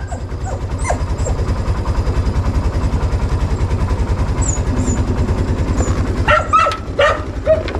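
Motorcycle engine idling with a steady low pulse. About six seconds in, a dog gives several short barks.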